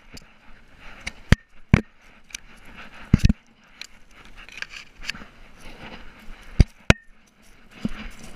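Grass and weeds brushing and scraping against a camera on a dog's collar as the dog noses through the grass, with a few sharp knocks and clicks of the camera and collar, two of them ringing briefly.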